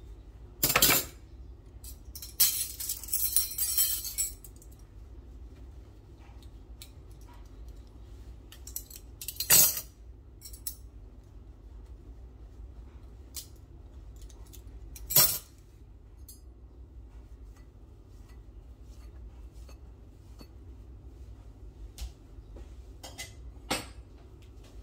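Metal cutlery clinking as it is dried with a cloth tea towel and set down at a stainless steel sink: a sharp clink about a second in, a rattling run of clinks a couple of seconds later, single loud clinks around ten and fifteen seconds in, and a few lighter clicks near the end. Under it runs the steady hum of a dryer in the background.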